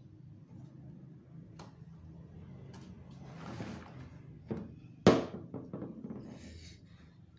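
A few light clicks and handling knocks over a low steady hum, with one sharp, louder knock about five seconds in.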